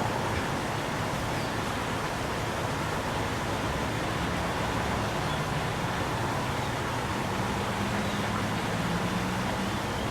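Steady outdoor background rush with a low engine hum, typical of traffic, that swells about seven to nine seconds in.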